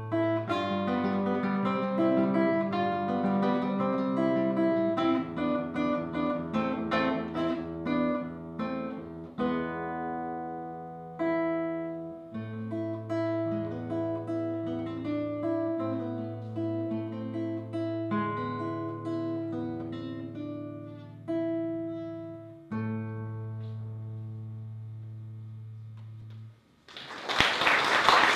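Solo fingerpicked nylon-string classical guitar: a melody plucked over sustained bass notes, slowing toward the close and ending on a final chord that fades out. Audience applause breaks out near the end.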